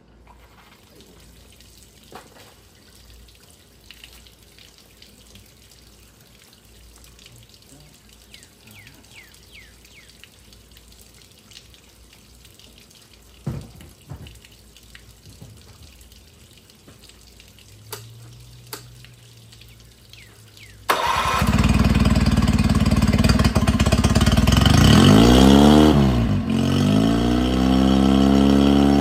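Mercury 9.9 outboard motor's first cold start after a repair, running on a garden-hose flush attachment. After a long quiet stretch it catches suddenly, its speed dips and climbs again, then it settles into a steady idle.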